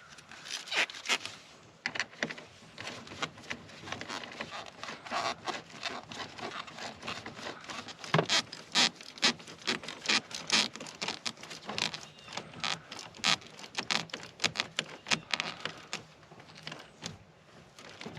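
Irregular clicks, taps and scrapes of hands and tools handling parts at a truck battery while it is being fitted, with rustling in between.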